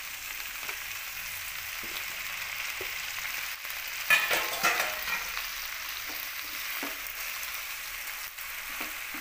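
Hot oil sizzling steadily in a kadhai as freshly washed red amaranth leaves are added on top of fried onion and garlic. There is a louder burst of crackling and clatter about four seconds in. In the last few seconds a spatula turns the leaves with a few soft scrapes.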